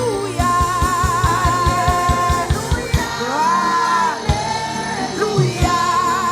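A woman singing a gospel worship song with long held notes over a live church band with a steady drum beat.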